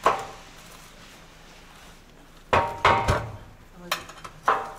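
Sharp, ringing metal clangs of steel tools striking the steel wheel rim of a T-40 tractor, as tyre levers are worked to free a tyre and tube rusted onto the rim. One clang at the start, then a quick run of several more from about two and a half seconds in.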